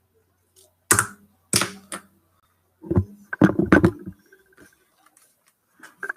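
A series of sharp knocks and clicks on a desk: a few single ones, then a quick cluster about three seconds in.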